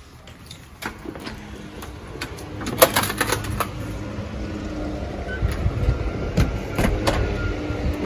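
Scattered knocks, clicks and rustling from someone getting up and moving about with a poster board, over a low rumble that grows steadily louder as they go outdoors.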